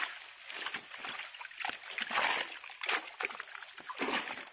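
Irregular splashing and sloshing of shallow water, from hands working through a net full of fish.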